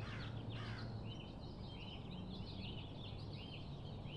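Repeated high chirping calls, about three a second, over a low steady hum; two quick falling chirps come near the start.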